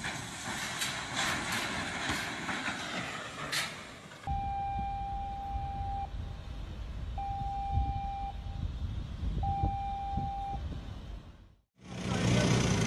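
A ship's whistle sounds three blasts of one steady mid-pitched tone, each a little over a second long with about a second between them: short blasts of the general emergency alarm signal, sounded after a collision between two cargo ships. Before the blasts there are several seconds of rushing noise with crackles. Near the end the sound cuts out briefly, and a steady low rumble follows.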